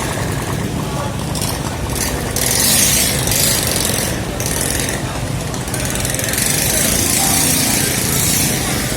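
An engine runs steadily under repeated stretches of loud hissing noise, with people talking in the background.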